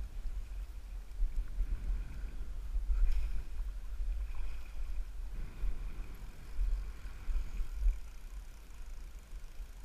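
Wind buffeting the action-camera microphone in gusts, a heavy low rumble over the slap and lap of choppy lake water. A single sharp click about three seconds in.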